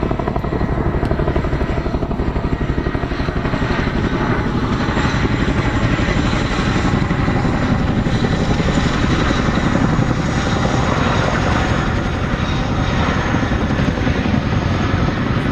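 RAF Boeing Chinook HC2 tandem-rotor helicopter in flight, its two rotors beating in a rapid, even chop over the steady turbine noise.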